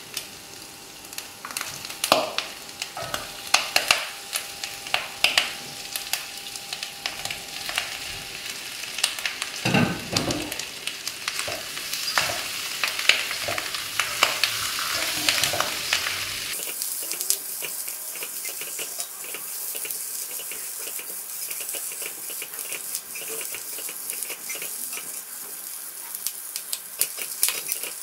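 Stir-frying in a wok: abacus seeds (yam bean and tapioca dumplings) sizzle in hot oil with fried condiments while a spatula scrapes and knocks against the pan, with frequent sharp knocks. About two-thirds of the way through, the sound changes to a steadier, thinner sizzle with lighter scraping.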